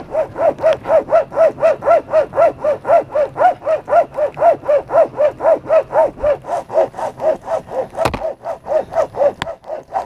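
A rope-pulled saw worked back and forth by two people through a tree trunk. It makes a fast, even run of squealing strokes, about four a second, each rising and falling in pitch. A sharp click comes about eight seconds in.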